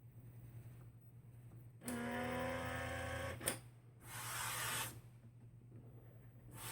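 Epson P600 inkjet printer mechanism running a head-cleaning cycle: a motor whine for about a second and a half, a sharp click, then a noisier whir for about a second.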